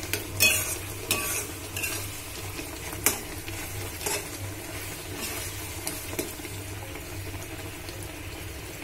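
A spoon stirring raw-mango pieces in bubbling jaggery syrup in a steel kadai, over a steady sizzle as the syrup cooks down on high-medium heat. The spoon knocks and scrapes against the pan several times in the first four seconds, then the stirring goes on more quietly.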